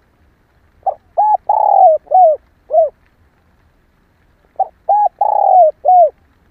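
Female spotted dove cooing: two phrases of four or five short notes each, about three and a half seconds apart, the third note of each phrase held longer and falling slightly in pitch.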